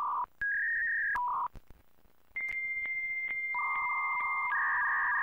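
Synthesized glitch sound effect for an animated logo intro: short blocks of buzzy electronic beeps with clicks, a brief pause about a second and a half in, then a steady high beep joined by a lower buzzing tone.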